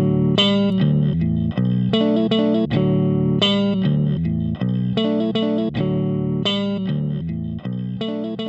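Background music: a plucked guitar riff over bass, its notes changing in a steady, repeating pattern.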